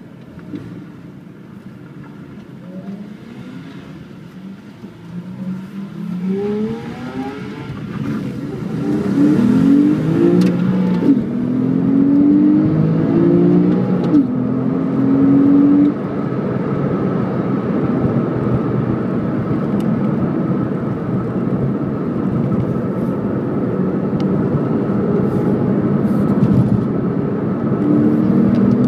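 Porsche 911 Carrera S (997 Gen II) 3.8-litre flat-six heard from inside the cabin. It pulls away gently, then accelerates harder through the gears of its six-speed manual, the engine note climbing and falling back at each upshift. It then settles into a steady cruise and starts pulling again near the end.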